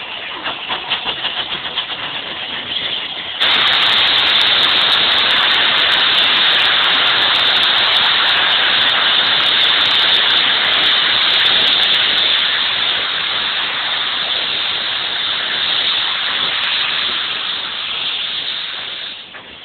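Steam locomotive Tangmere, a Bulleid Battle of Britain class Pacific, blowing off steam. A softer uneven hiss jumps about three and a half seconds in to a loud, steady rush of steam that eases off near the end. This is typical of the safety valves lifting as boiler pressure reaches its limit.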